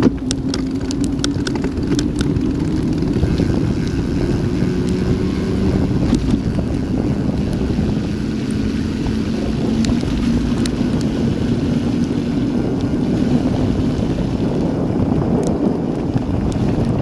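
Steady rush of wind on the action camera's microphone as a mountain bike coasts fast down a wet road, with tyres hissing through the water on the tarmac.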